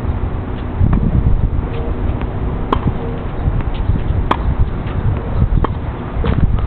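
Tennis ball struck by rackets in a rally: several sharp pops a second or two apart, over a heavy low rumble of wind on the microphone.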